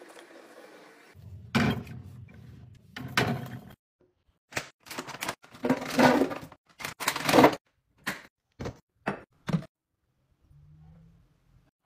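A run of short knocks, clicks and rustles from kitchen containers being filled. Around the middle, dishwasher pods tumble from a pouch into a clear plastic canister with quick clattering and crinkling.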